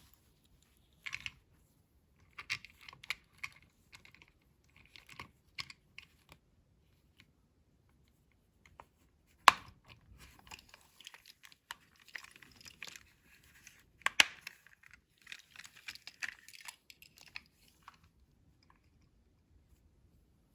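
Plastic toy packaging and a Hot Wheels toy truck being handled: crinkling and rustling with scattered small clicks, and two sharp snaps about nine and fourteen seconds in.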